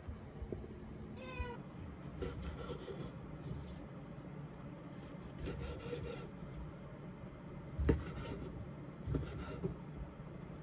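A cat meows once, briefly, about a second in. Then a kitchen knife cuts through chikuwa fish-cake sticks on a wooden cutting board: a series of knife strokes knocking on the board, the loudest about eight seconds in.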